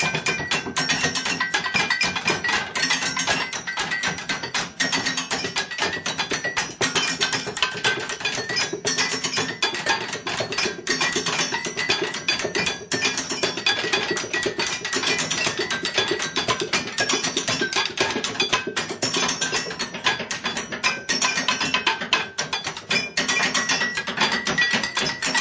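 Fast, continuous found-object drumming on kitchen utensils and surfaces: dense rapid strikes in a steady rhythm, with a few struck items ringing on sustained pitches.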